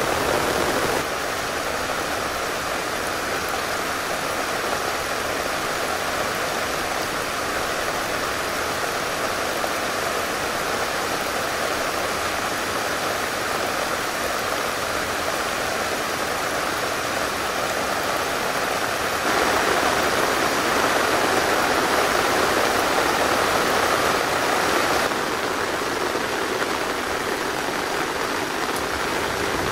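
Steady rain falling, a dense even hiss with no single drops or other events standing out. It turns suddenly louder about 19 seconds in and drops back about 25 seconds in.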